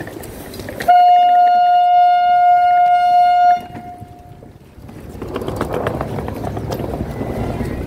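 Train horn sounding one steady single-note blast for about two and a half seconds, cutting off sharply with a short echo. A few seconds later a train's running noise builds up and holds.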